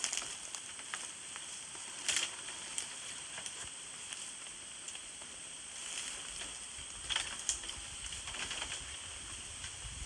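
Bamboo stems creaking and cracking as a person climbs a bamboo clump: a few short sharp clicks over a steady hiss, with a low rumble in the second half.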